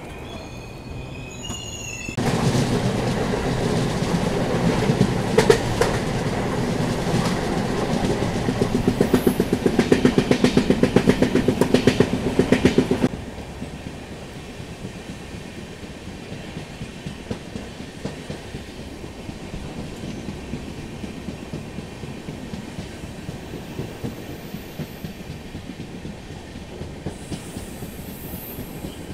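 A train running on the line, its wheels clacking over the rail joints. From about two seconds in it turns much louder, a dense rumble with rapid clatter, then cuts off abruptly at about thirteen seconds and settles to a quieter, steady run.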